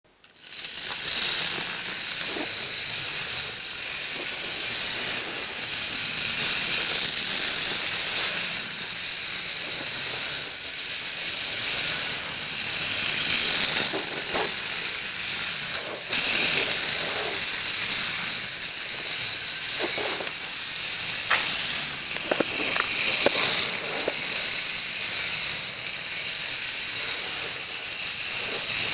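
Tin toy's clockwork mechanism running with a steady whirring rattle, with a few sharper clicks in the second half.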